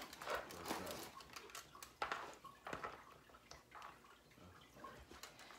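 Scattered light clicks and knocks at an irregular pace, a few louder ones about two seconds in.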